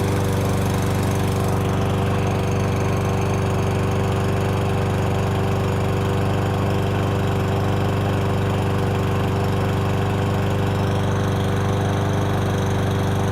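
Craftsman gas push mower's overhead-valve engine running steadily in place with the blade spinning but not cutting grass, a loud, even engine note with the whooshing of the blade. It measures about mid-90s decibels at the operator's position.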